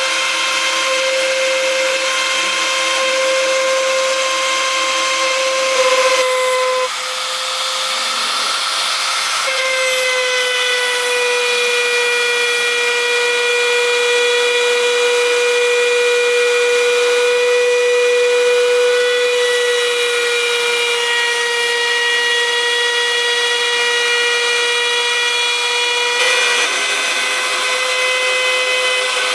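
1325 CNC router spindle running, engraving a plaque: a steady high whine with overtones that shifts slightly in pitch a few times.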